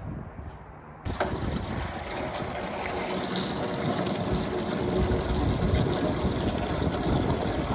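Water rushing and splashing in a crawfish washer tub, starting abruptly about a second in and growing steadily louder.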